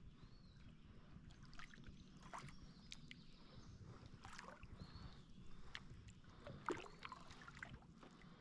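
Near silence on a calm river from a canoe: faint, scattered small knocks and taps from the canoe and gear, with a few faint high chirps.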